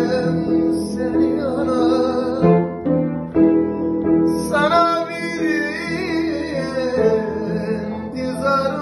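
Turkish folk song playing: plucked-string instruments and keyboard accompaniment under a wavering, ornamented melody line, with singing.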